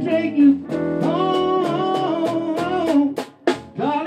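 Live blues band playing: electric guitar over bass guitar and drums, with singing.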